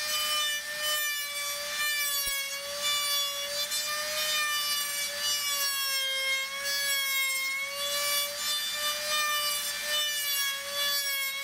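Handheld trim router running at high speed and cutting wood, a steady high-pitched whine that wavers slightly in pitch under load. The bit is rounding over the edges of a wooden handle.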